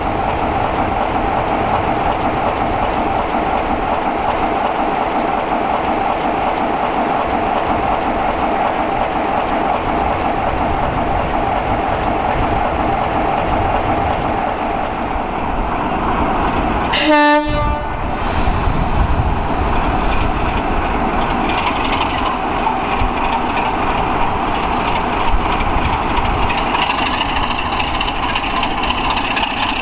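Classic British Rail diesel locomotive engine running steadily at close range. About halfway through, a short blast of the locomotive's horn sounds, then the diesel running carries on.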